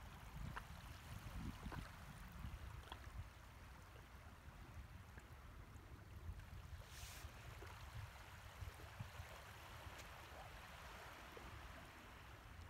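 Faint beach ambience on a tidal flat: a steady low wind rumble on the microphone under a soft hiss of shallow water, with a brief louder hiss about seven seconds in.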